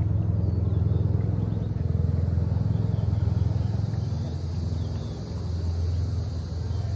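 Motorboat engine running steadily with a low rumble, easing slightly about two thirds of the way through.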